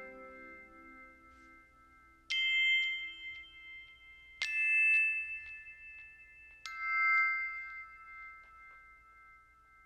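Glockenspiel-like chime notes: three notes of different pitch struck about two seconds apart, each ringing on and fading slowly, after an earlier note dies away at the start.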